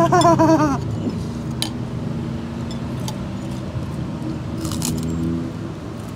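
Eating sounds: spoons and forks clinking against ceramic soup bowls and a cracker being crumbled, over a steady hum of road traffic that swells a little about five seconds in.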